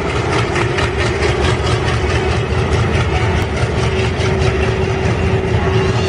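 Diesel locomotive passing close by at speed: a loud, steady engine rumble with a drone and a fast, even pulsing beat.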